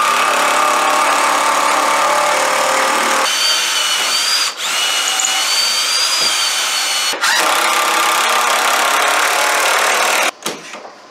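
Power drill driving lag bolts into wood, running in three long runs with brief stops about four and a half and seven seconds in, and stopping shortly before the end.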